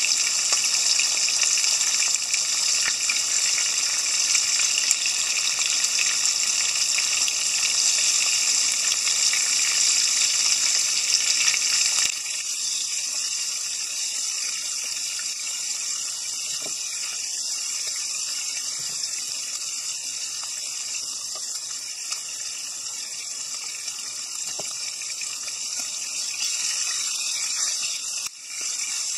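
Flour-dusted sardines shallow-frying in oil in a frying pan, a steady sizzle. About twelve seconds in it drops suddenly to a softer sizzle, and it dips briefly near the end.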